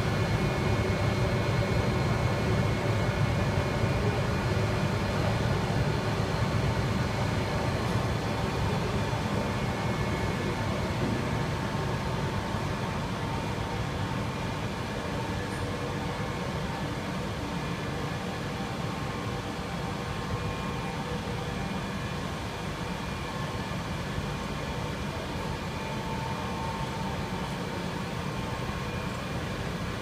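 Rubber extrusion and vulcanization line running: a steady hum of motors and blowers with several steady whining tones, a little louder at first.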